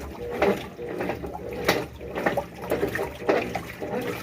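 Brastemp washing machine in its wash stage: water sloshing in the tub with irregular knocking and clattering, a 'quebradeira' as if something were breaking. The noise comes from below the tub, possibly from the drive mechanism's gearbox.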